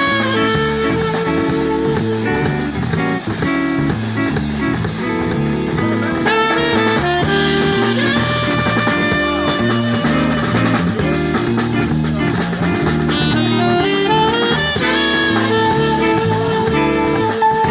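Live band playing an instrumental number with melody lines over a steady beat.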